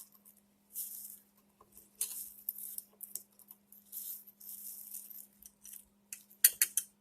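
A small tool scraping and picking at packed dirt inside an old Singer sewing machine's mechanism: several short, scratchy strokes, then a few sharp clicks about six and a half seconds in.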